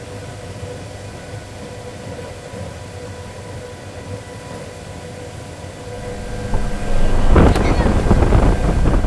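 Large test blower fan running with a steady whine over a rush of air, then a much louder blast of wind hitting the microphone about six seconds in, with a sharp knock about a second later.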